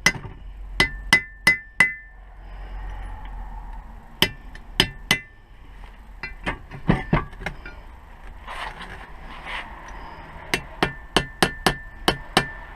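Titanium hammer tapping the wheel bearing's steel circlip into its groove, sharp metal taps with a brief ring. They come in several short bursts of three to six taps, about three a second.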